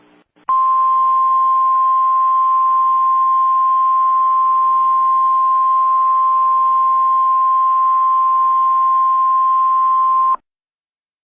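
Emergency alert attention tone: a single steady high tone of about 1 kHz over a hiss of static. It starts half a second in, holds for about ten seconds and cuts off suddenly. It is the National Weather Service's 1050 Hz weather-radio alert signal, which announces a warning about to be read.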